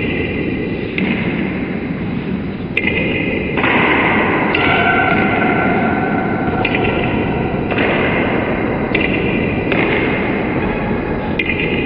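Table tennis ball clicking off bats and the table during rallies, each click followed by ringing in the hall, over a steady noisy background.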